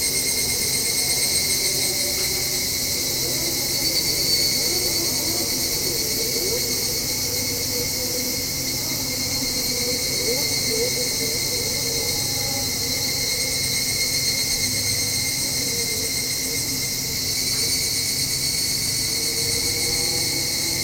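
Higurashi (evening cicadas, Tanna japonensis) calling in a steady, continuous high-pitched ringing chorus.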